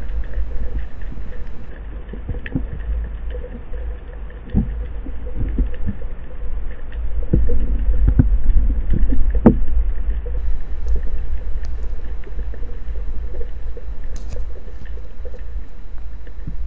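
Underwater sound through an action-camera housing mounted on a speargun: a steady low rumble of water moving past the housing as the freediver swims, with scattered soft knocks and clicks from the gun and housing, louder in the middle.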